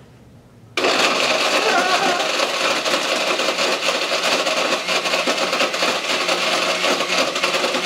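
Countertop blender motor switching on about a second in and running steadily, chopping a thick load of gummy bears, snack cakes and carbonated orange soda.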